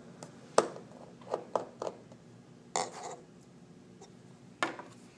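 Sharp little clicks and taps of a small screwdriver and tiny screws on an iPhone 5 while it is being taken apart, about six in all, the loudest about half a second in.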